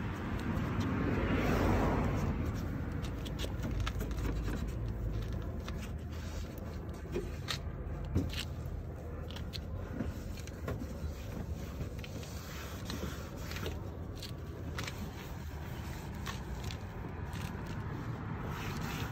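Hand scrubbing and wiping a plastic headlight lens: soft rubbing and scraping, strongest in the first couple of seconds, with scattered small clicks over a steady low rumble.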